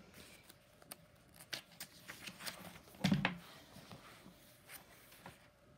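Light rustling and scattered clicks of handling noise, with one louder bump about three seconds in.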